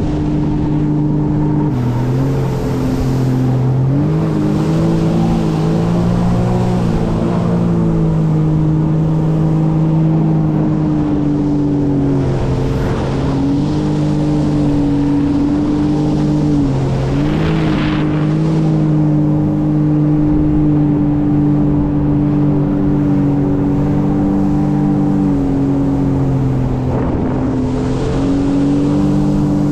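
Sea-Doo Explorer Pro personal watercraft's three-cylinder Rotax engine running under way, its pitch dipping and picking up again several times as the throttle is eased and reopened. Hiss of water spray off the hull over it.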